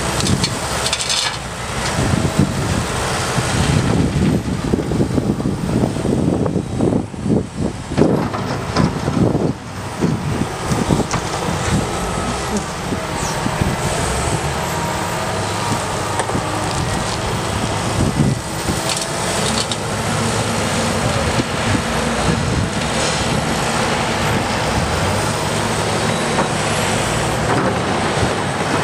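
Liebherr R 926 crawler excavator running, its diesel engine and hydraulics working under load. In the first ten seconds a bucketful of soil and recycling material is dumped into a tractor's dump trailer in a burst of irregular crashes. After that the sound settles to a steadier engine note while the bucket digs into the dirt.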